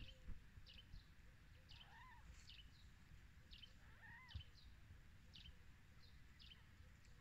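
Faint mewing of newborn kittens: two short cries that rise and fall in pitch, about two and four seconds in. Small birds chirp with short, high notes throughout.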